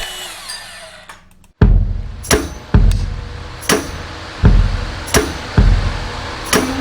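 Music with a steady drum beat starts about a second and a half in, after a short near-silent gap.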